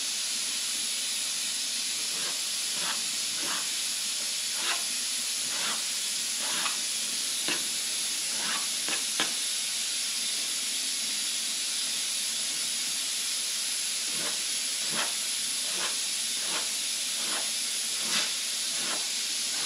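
Steady hiss with irregular light clicks and taps, about one every second or so, from a knife cutting rolled-out dough against a metal tray.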